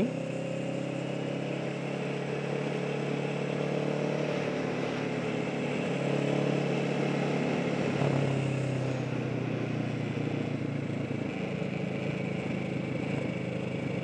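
Motorcycle engine running steadily while riding along, with wind and road noise; the engine note shifts a little a few times.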